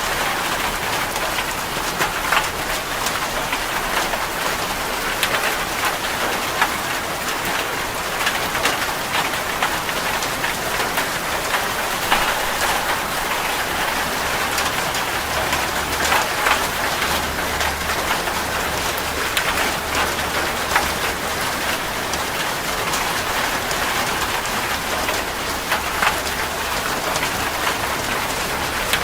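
Steady rain falling, with many individual drops ticking sharply close by. A faint low hum comes and goes in the second half.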